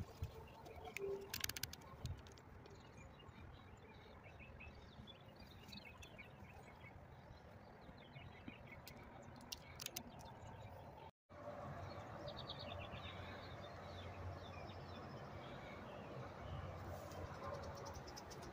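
Faint outdoor ambience with small birds chirping now and then, and a few sharp clicks about a second in. The sound cuts out for a moment about eleven seconds in.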